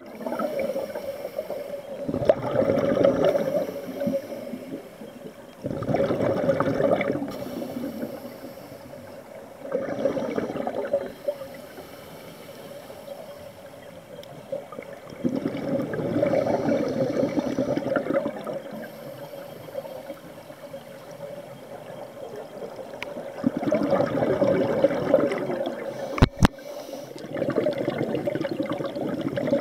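Scuba diver's exhaled regulator bubbles rushing past an underwater camera housing in about six bursts, one breath every few seconds, with quieter inhalations between. A single sharp knock near the end.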